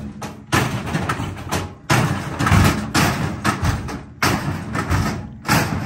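Steel pry bar forced against an ATM's sheet-metal cabinet: a run of loud metal clanks and scraping bursts, repeated several times, as the cabinet is levered open.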